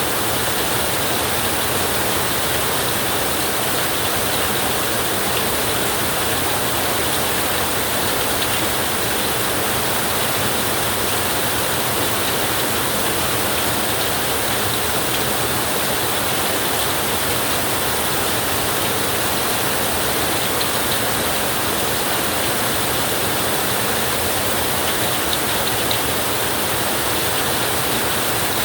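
Flowing river water rushing steadily, an even wash of noise with no change in level.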